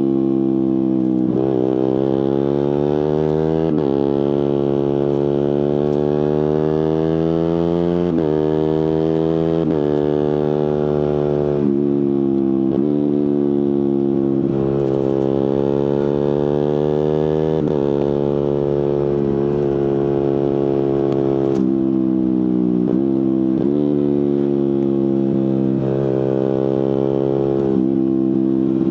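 Suzuki GSX-R150's single-cylinder engine through an aftermarket Prospeed exhaust, pulling hard: the pitch climbs steadily and drops sharply at each quick gearchange, about eight times.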